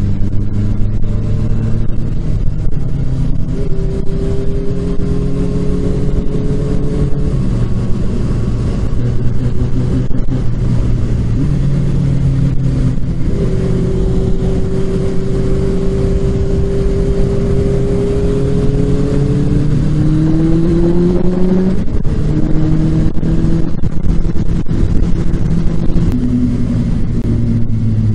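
Sport motorcycle engine heard from on board while riding at speed; its pitch holds and climbs with the throttle, then drops sharply at a gear change about two-thirds of the way in. Wind rushes past steadily underneath.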